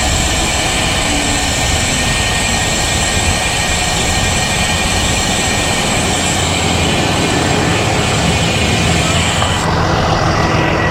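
Steady rush of wind on a GoPro microphone with tyre and road noise while riding a road bike. A high, steady whine in the background cuts out near the end.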